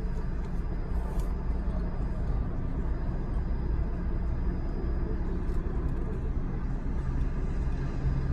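Car engine idling with a steady low rumble, heard from inside the cabin. A brief rustle about a second in.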